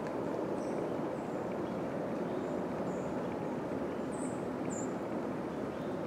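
Steady rushing noise, with short, faint, high bird chirps every second or so.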